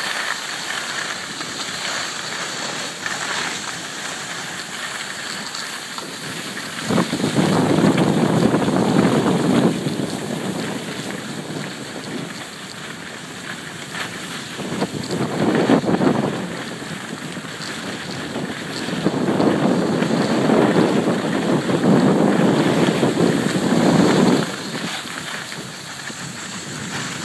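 Wind buffeting the microphone of a skier moving downhill, over a steady hiss. It swells into louder rumbling gusts about seven seconds in, again around fifteen seconds, and for several seconds from about nineteen seconds in.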